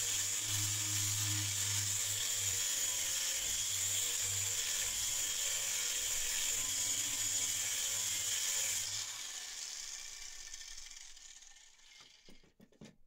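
Angle grinder grinding the rusty steel blade of an old meat cleaver, a steady high whine. About nine seconds in it comes off the work and winds down, followed by a few faint clicks.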